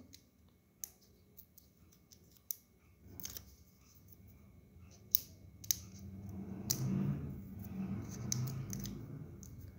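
Sharp little clicks and paper crackles as backing liners are picked and peeled off foam adhesive dimensionals on a cardstock die-cut, with a faint low hum in the second half.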